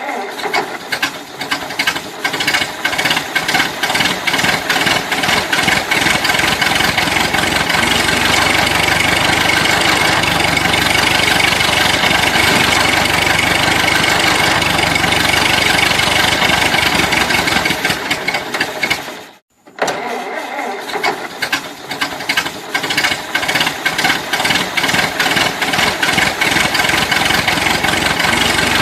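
Old car engine being cranked by the starter, catching and running. About two-thirds of the way through it fades and cuts out for a moment, then is cranked again and runs on.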